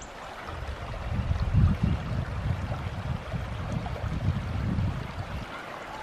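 Wind buffeting the microphone outdoors, a gusty low rumble that swells and then dies away near the end, over a steady soft hiss.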